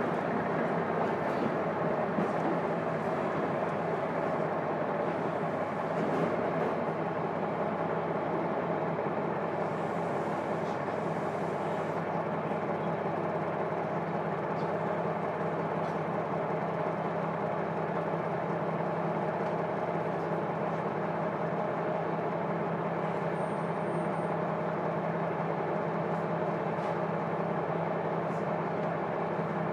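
KiHa 200 diesel railcar's engine heard from the seat directly above it inside the closed-window passenger cabin, running at a steady, unchanging pitch, with a few faint clicks over it.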